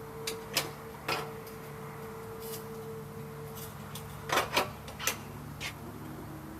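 Scattered sharp clicks and knocks, about eight of them, the loudest pair a little over four seconds in, as a ratchet rake is unclamped from a tractor's loader bucket. Under them runs a steady low hum.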